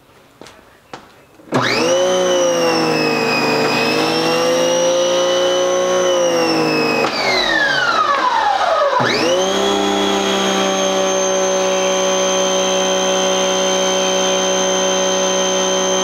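Giraffe Tools Grandfall electric pressure washer's motor and pump kicking on suddenly about a second and a half in, running with a steady whine while soap sprays through the foam-cannon attachment. Around seven seconds in the pitch drops steeply for about two seconds, then climbs straight back and holds steady.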